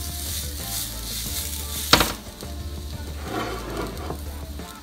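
Shawarma wrap sizzling on a hot grill, a steady frying hiss, with one sharp clack about two seconds in.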